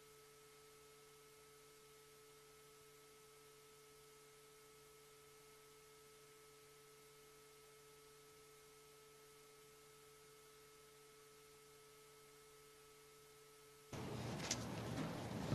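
Near silence with a faint, steady electrical hum-like tone in the audio feed. About 14 seconds in, the room sound cuts in abruptly, with low room noise and a few sharp clicks.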